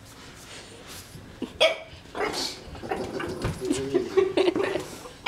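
French Bulldog puppy barking at a magazine it is afraid of. A first sharp bark comes about a second and a half in, and a run of barks follows through the last three seconds.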